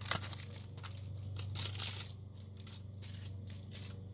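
Plastic wrapping on a CD being crinkled and torn open, in irregular scratchy strokes that are loudest about a second and a half in, over a steady low hum.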